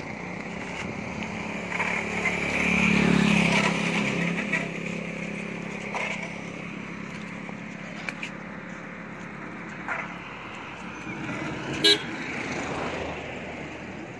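Road traffic: a vehicle passes, growing louder and fading about two to four seconds in, with a short, sharp sound near the end as the loudest moment.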